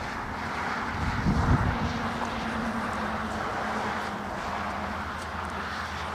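A motor running steadily with a low hum, over a rushing haze, with a short louder low bump about a second in.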